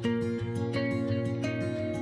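Background music of plucked, ringing notes over a steady low note, with new notes struck a few times.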